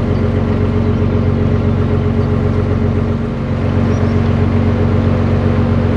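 Diesel engine of a Dutch barge running steadily underway, a constant low drone with a steady hum above it.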